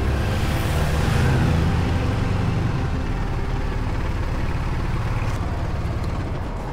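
Motorcycle engine running while riding, with wind and road noise; the engine note rises briefly about a second in.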